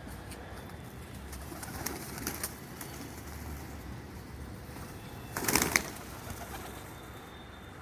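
Pigeons cooing, with a short, louder burst of sound about five and a half seconds in.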